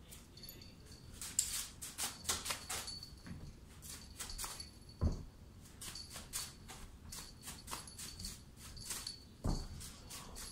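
Cats pouncing and leaping at a feather wand toy: scattered light clicks and rustles, with a soft thump about five seconds in and another near the end.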